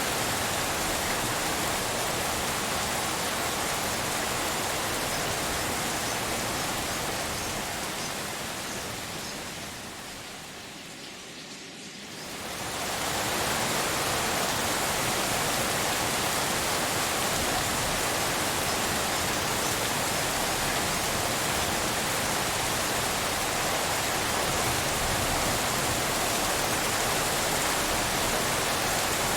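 Steady rain hiss mixed as pink noise, even across low and high pitches. It fades down from about seven seconds in, is at its quietest near twelve seconds, and swells back to full strength by about thirteen seconds.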